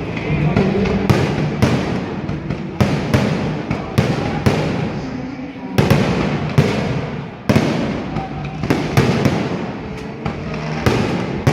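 Fireworks bursting overhead: an irregular run of sharp bangs, often several within a second, with crowd voices underneath.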